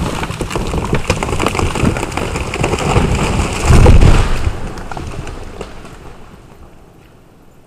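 A tree stump blown apart by an explosive charge. A dense crackling noise comes first, then a heavy blast about four seconds in, followed by debris falling and a rumble that dies away.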